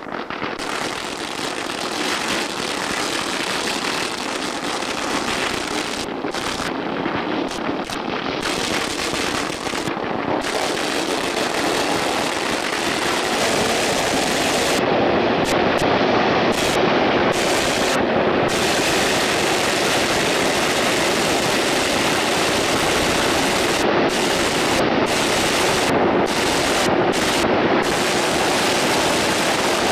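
Long strings of Chinese firecrackers exploding in a continuous rapid crackle, growing louder about halfway through.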